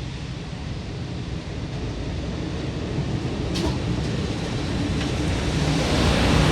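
LIRR M3 electric multiple-unit train rolling past, its wheels and running gear rumbling and growing steadily louder.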